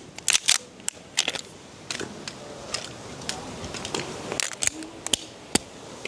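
Pistol being loaded and made ready: a run of sharp, irregular metallic clicks and clacks as it is handled, the magazine seated and the slide worked.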